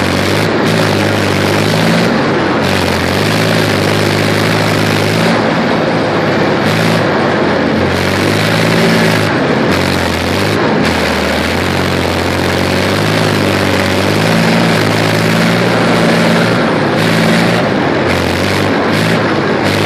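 BWP-1 (BMP-1) tracked infantry fighting vehicle driving off-road, its UTD-20 V6 diesel engine running loud and steady under the noise of the running gear, the engine note rising and falling several times as it drives over the ruts.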